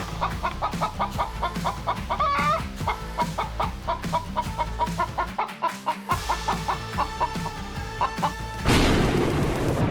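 Hens clucking in quick runs of short calls, with one rising squawk a couple of seconds in, over background music. Near the end a loud rushing noise sweeps in.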